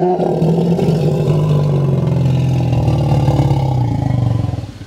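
Asian elephant giving a long, loud, low rumbling call whose pitch sags slowly for about four seconds before it stops near the end.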